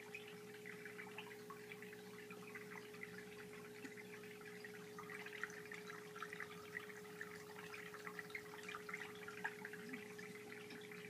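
Aquarium bubbler running: a faint, steady crackle of air bubbles rising and popping, a little busier in the second half, over a steady hum from the tank's equipment.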